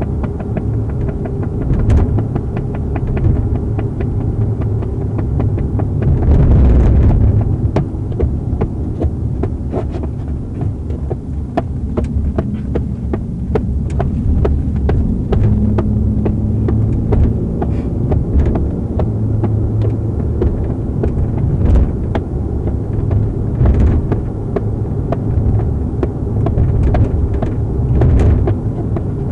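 Steady low rumble and hum of a police patrol car's back-seat cabin, picked up by the in-car camera's microphone, with many small clicks and rattles throughout and a louder swell about six seconds in.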